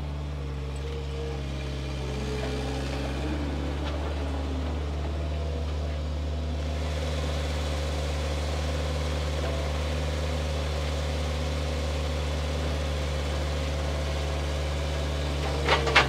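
Tractor engine running steadily while its front loader carries a round hay bale on a bale spear. The engine note shifts slightly about three seconds in.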